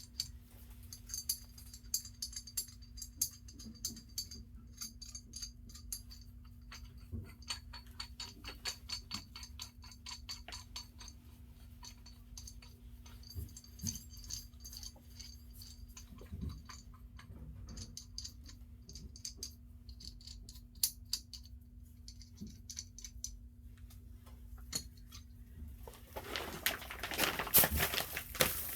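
Many light metallic clicks and clinks of hand tools and small metal parts being handled during furnace blower motor work, over a steady low hum. Near the end comes a louder stretch of rattling and handling noise.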